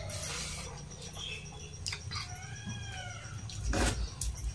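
A single short animal call about halfway through, rising and then falling in pitch, among small clicks and soft knocks of hands eating from steel plates, with one louder knock near the end.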